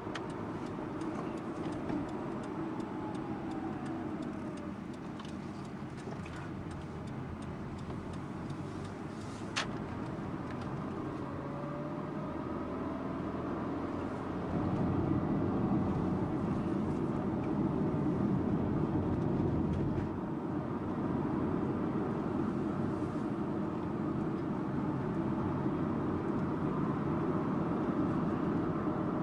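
Subaru Impreza Sports Wagon (GG2) driving: steady flat-four engine and road noise, growing louder about halfway through and easing off a little about two-thirds of the way in, with a single sharp click about a third of the way in.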